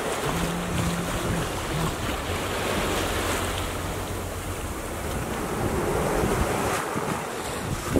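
Steady wind buffeting the microphone over the rush of choppy open-sea waves around a sailing yacht under way.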